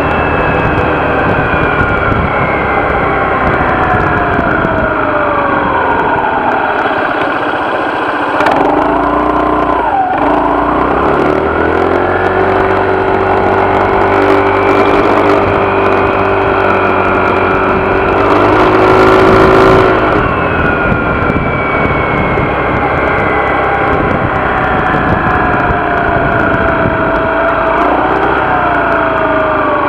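Honda PCX scooter's single-cylinder four-stroke engine and belt drive running under way: the whine falls away as it slows, picks up again and climbs to a peak with a brief rush of noise about two-thirds through, then eases off. This is the scooter that has a buzzing vibration problem.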